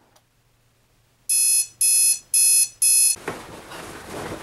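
Digital alarm clock going off with four loud, evenly spaced high-pitched beeps, followed by faint rustling.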